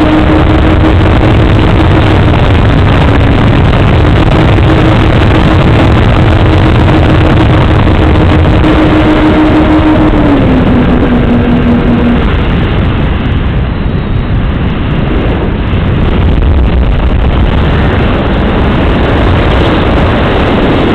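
RC model airplane's motor and propeller heard through the onboard camera, a steady hum under heavy wind rush. About ten seconds in, the motor tone drops in pitch, and it cuts out soon after, leaving only the wind noise of the plane in flight.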